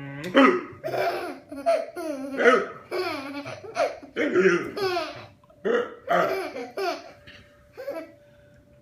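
A baby laughing hard in a string of short, high-pitched bursts for about seven seconds, set off by a man's hiccups, which come among the laughs.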